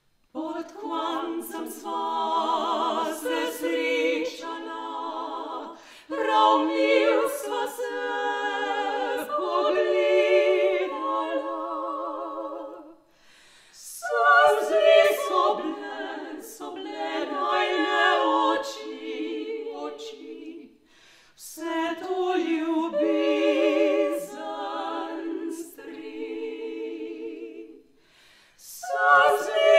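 Three female classical singers performing an unaccompanied vocal trio, their voices in harmony with vibrato. They sing in long phrases broken by short breaths about every seven seconds.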